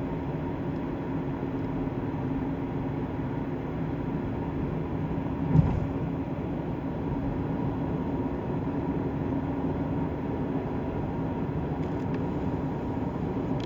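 Steady road and engine noise inside a moving car's cabin, with a single thump about five and a half seconds in.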